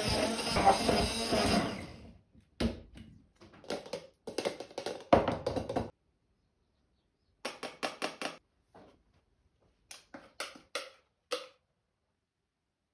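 Countertop blender running as it purees the banana smoothie, then switching off and winding down about two seconds in. After that come several groups of short knocks and clicks from handling hard kitchenware.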